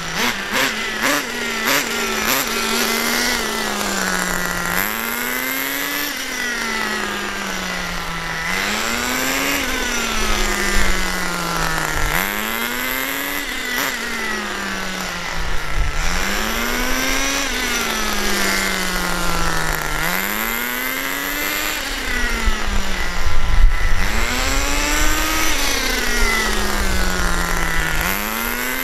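Vertex .18 two-stroke nitro engine of a 1/10 scale RC truck running at about quarter throttle while the truck laps slow figure-of-eight circles, a new engine being broken in on its second tank. Its buzzing note rises and falls in pitch about every three and a half seconds as the truck circles.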